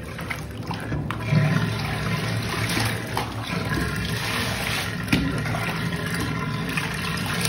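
Water poured from a plastic dipper, splashing and sloshing in the shallow water of a bathtub as a small dog is rinsed. It grows louder about a second in and then keeps up a steady splash.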